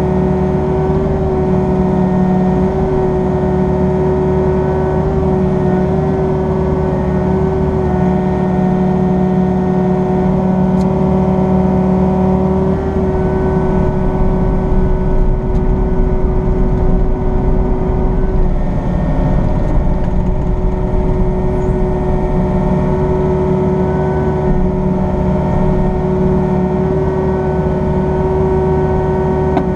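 Excavator engine and hydraulics running steadily, heard from inside the closed cab, with a steady whine over the engine. The low rumble grows for a few seconds in the middle as the load shifts while the arm and grapple work.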